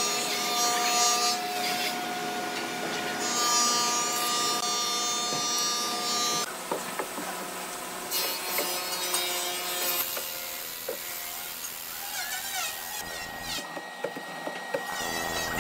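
Woodworking machine cutting into hardwood: a mortising machine's vertical bit bores a slot into a thick slab. The sound changes character several times, and a steady high whine sets in near the end.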